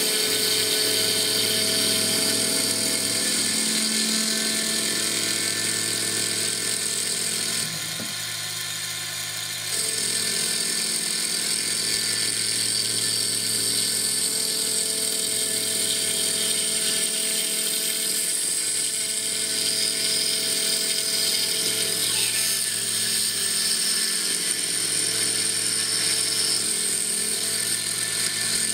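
CNC mill spindle spinning a Stone Hopea burl wood ring blank while a fixed cutter turns a clearance pass, a steady machine whine with hissy cutting noise. It drops away for about two seconds some eight seconds in, then picks up again.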